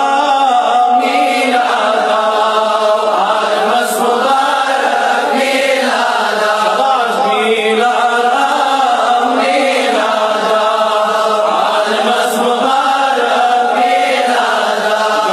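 An Islamic cleric's voice chanting in a melodic reciting style, long held and wavering phrases broken by short pauses every two seconds or so.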